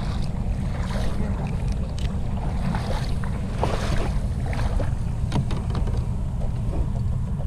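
Wind buffeting the microphone out on open water, a steady rumble, with light water sounds and a few scattered small clicks and knocks.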